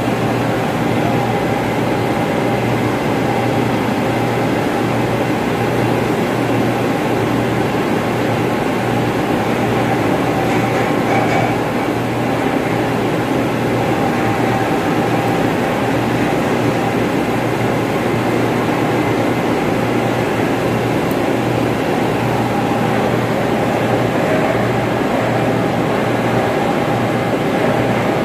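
Steady, loud drone of running ventilation fan machinery: a low hum with a fainter, higher whine held over it.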